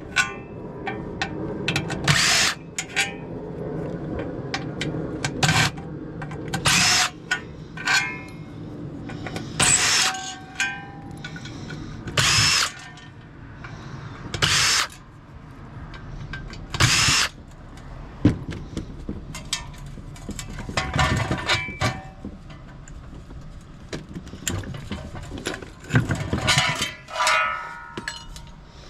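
A power tool run in repeated short bursts, each under a second, with small clinks and knocks between them.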